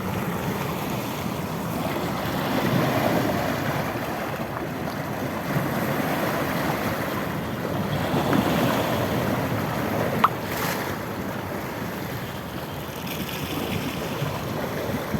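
Sea waves washing and breaking on the shore, swelling and easing in a steady surge, with wind buffeting the microphone. A single sharp click sounds about ten seconds in.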